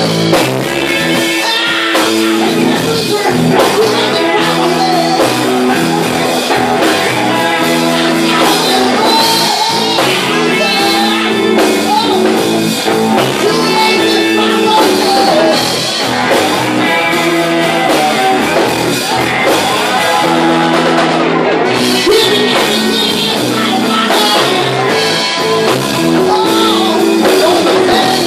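Live electric blues band playing a slow blues: a Stratocaster and a Les Paul electric guitar over bass and drums, with a male singer on the vocal.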